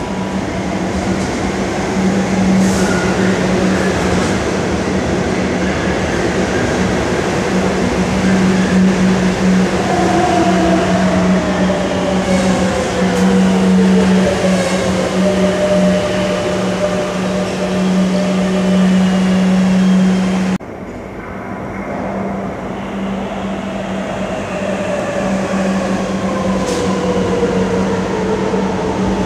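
Metro train pulling into an underground station: steady running noise with a strong hum and an electric motor whine that falls in pitch as the train slows. The sound cuts abruptly about two-thirds of the way through, then picks up again with the train moving past close by and another whine sliding down.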